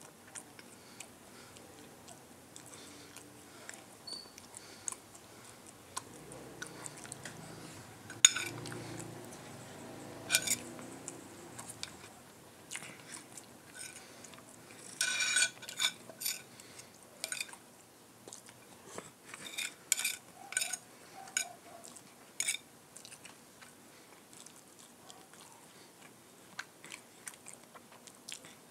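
Close-up eating: a spoon and fork clink and scrape on a ceramic plate, amid close chewing of rice and tocino, with sharp clinks scattered throughout and a busy cluster about halfway through.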